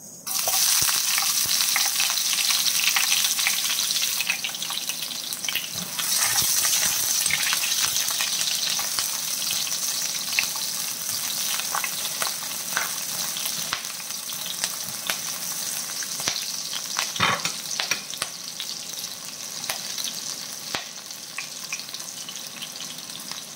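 Chopped onion sizzling in hot oil in a wok. The sizzle starts suddenly and loudly as the onion goes in, then slowly eases off, with the clicks and scrapes of a spatula stirring against the pan.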